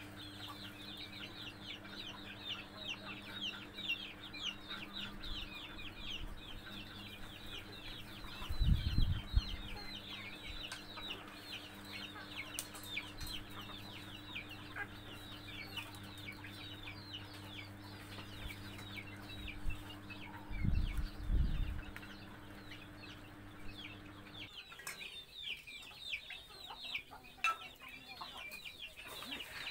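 Backyard chickens clucking, over a constant stream of quick, high, downward-falling peeps. A steady low hum underneath cuts off suddenly about five seconds before the end, and two dull low thumps come, about 9 and 21 seconds in.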